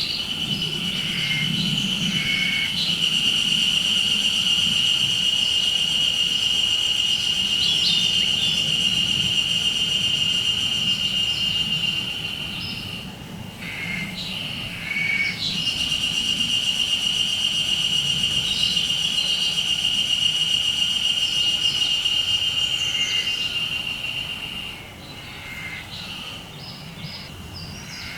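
Haruzemi (Japanese spring cicada) singing: two long, steady, high-pitched buzzing phrases of about ten seconds each, with short broken calls before, between and after them.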